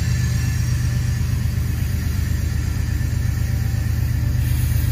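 A loud, steady low rumble that does not change in level.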